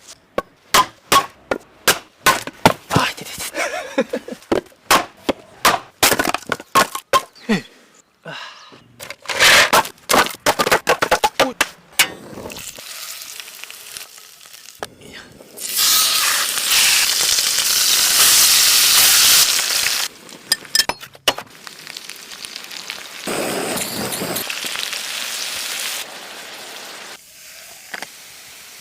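Cooking sounds: a run of sharp clicks and knocks from kitchen utensils, then loud sizzling, like food going into hot oil, that stops after about four seconds and returns more briefly near the end.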